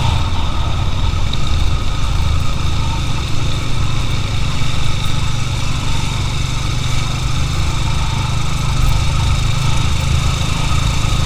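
Motorcycle engine running steadily at a constant speed, a continuous low rumble with no change.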